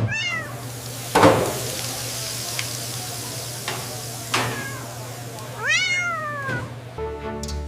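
A cat meowing twice: a short falling meow at the very start and a longer meow near the end that rises then falls. Between them come two sharp knocks, over a steady hiss.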